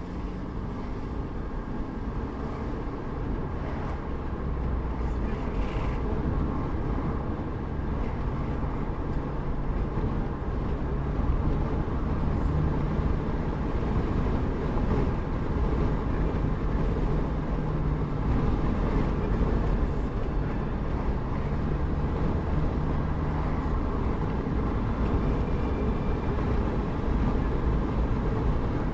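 Steady low rumble of a moving road vehicle, with a faint engine hum underneath, slowly growing a little louder.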